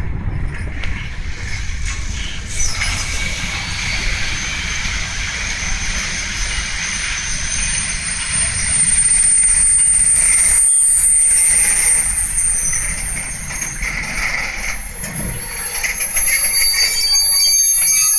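Freight train wagons rolling slowly past on the rails with a steady rumble, and high, thin metallic wheel squeal that sets in a few seconds in and grows louder near the end as the train runs into a station side track.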